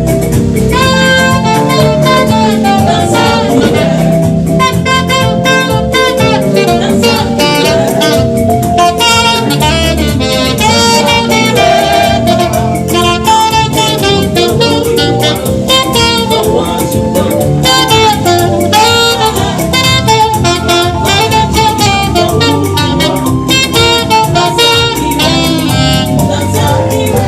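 Saxophone playing quick melodic runs of short notes over a full band accompaniment, in a jazz-flavoured gospel style.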